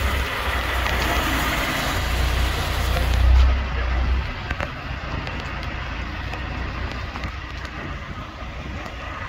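Motor vehicle engine rumble that swells to its loudest about three seconds in, then falls away to steadier, quieter road and traffic noise.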